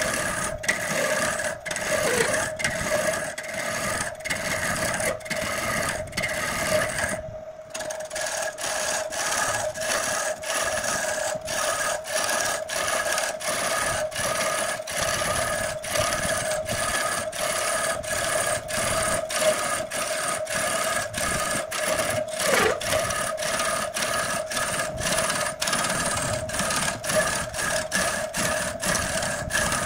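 A turning gouge cutting into a large wooden log blank spinning on a wood lathe: a steady scraping and shaving noise over the lathe's constant hum, with a brief break about seven seconds in when the cut eases off.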